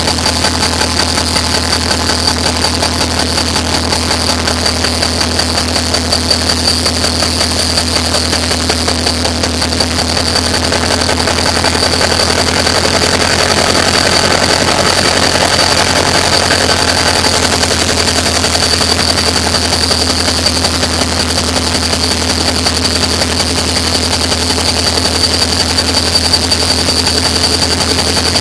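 Class 333 diesel-electric locomotive's EMD two-stroke V16 diesel engine running steadily at idle, with a constant high-pitched whine over the low engine drone.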